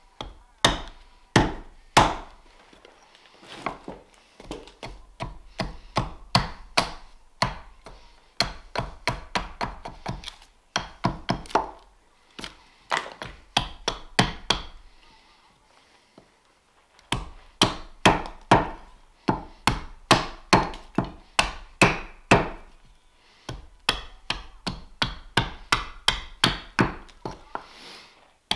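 Carving axe chopping into a green-wood spoon blank held on a wooden chopping block: runs of sharp strikes, about two a second, broken by short pauses every few seconds.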